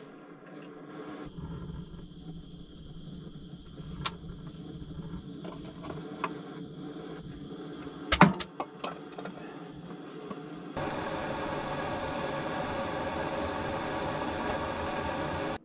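A few sharp clicks and knocks at an iron wood stove, the loudest a quick cluster about eight seconds in. Then, from about eleven seconds in, the steady hiss of a butane jet-flame torch lighter burning as it lights the wood in the stove's firebox.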